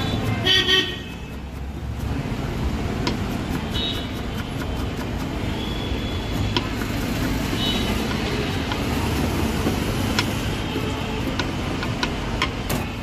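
Street traffic with horns tooting several times, the loudest about half a second in, over a steady road noise. A knife taps sharply on a wooden chopping board now and then as greens are chopped.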